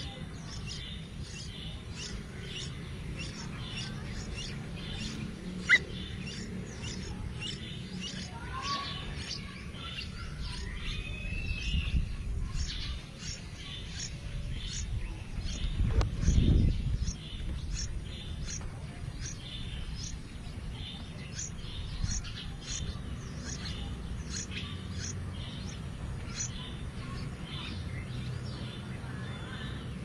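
Yellow-vented bulbul nestlings begging at the nest while the parent feeds them: short, high chirps repeating a couple of times a second. A sharp click comes about six seconds in, and a low thump around sixteen seconds.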